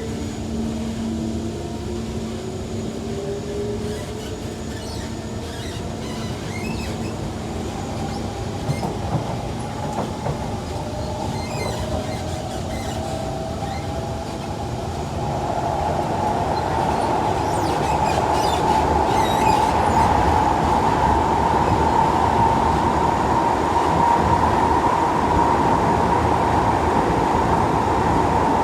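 Kawasaki C151 metro train accelerating: the traction motors whine in tones that rise steadily in pitch for about fifteen seconds, then the train runs on at speed with a louder steady rush of wheel-on-rail noise carrying a high ringing note.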